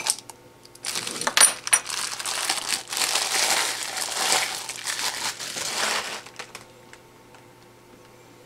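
A ceramic mug set down on a desk with a short knock, then about five seconds of packaging being crinkled and handled, stopping about six seconds in.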